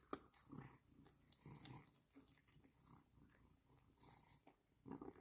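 A cat eating: faint, irregular chewing and biting sounds.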